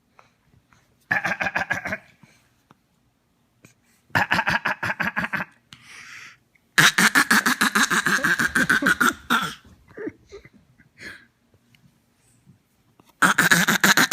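A young child making a funny vocal noise: a fast stuttering, pulsing sound of about a dozen pulses a second, in four bursts. The longest runs for nearly three seconds, starting about seven seconds in.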